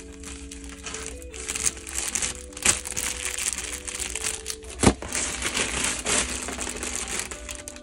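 Clear plastic packaging bags crinkling as they are handled, with a sharp snap about five seconds in. Background music with held notes plays underneath.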